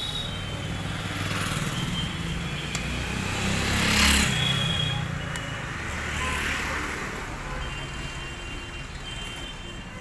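A passing motor vehicle on the street: its engine rumble and road noise swell to a peak about four seconds in, then fade.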